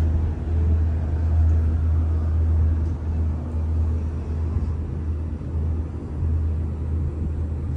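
Steady low rumble inside a Disney Skyliner gondola cabin as it travels along its cable.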